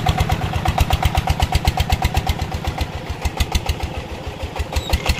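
Single-cylinder diesel engine of a công nông farm truck chugging steadily at about nine beats a second as it hauls a load of rubber-tree stumps, with belt and metal rattle over the top.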